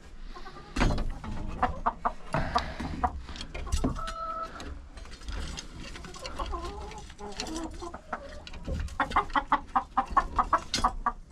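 Chickens clucking, with a brief higher call about four seconds in, among short knocks, a loud one about a second in and a quick clattering run near the end.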